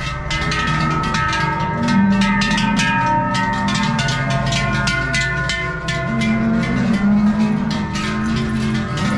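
Large cowbells clanging irregularly, many at once, with their ringing tones overlapping. Low held tones run underneath.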